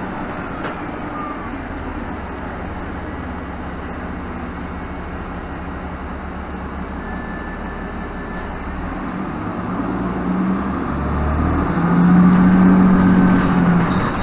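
Cabin noise inside a 2017 Nova Bus LFS diesel city bus under way: a steady engine drone and road rumble. About ten seconds in it swells to a louder engine hum, which eases off near the end.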